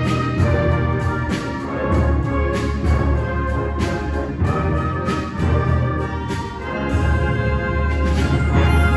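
Live orchestra playing loudly, with brass among the sustained parts and sharp accents every half second to a second.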